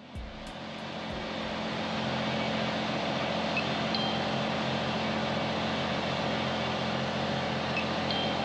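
Steady mechanical drone with a low hum, fading in over the first two seconds and then holding even.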